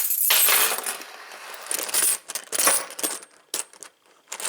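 Metal padlock and its keys being handled and unlocked, with irregular metallic clinking and rattling, loudest in the first second and again past the middle.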